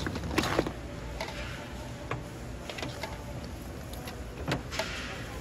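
Wooden spatulas and then metal tongs scraping and knocking against a large stainless steel bowl as sauce-coated fried chicken (dakgangjeong) is tossed: scattered scrapes and clicks over a steady low hum.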